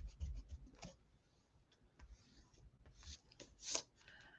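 Faint scratching and light ticks of stationery on a notebook's paper page: scattered small clicks, with a brief louder rub about three and a half seconds in.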